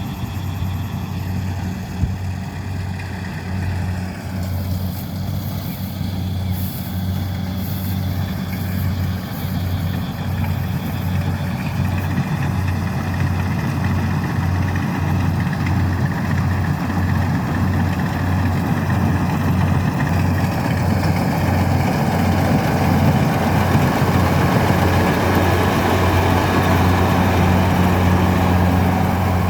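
Kubota DC-70 combine harvester's diesel engine and threshing machinery running steadily under load while harvesting rice, with a deep steady hum that grows a little louder over the last third.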